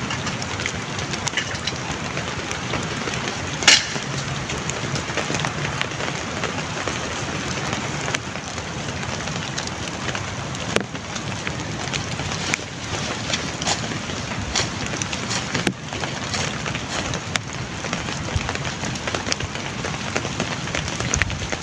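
Heavy rain falling steadily, with many sharp individual drop hits, and one louder knock a little under four seconds in.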